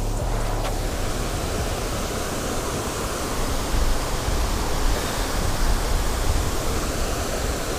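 Steady rushing noise of water spilling over a dam, with an uneven low rumble that swells a little around the middle.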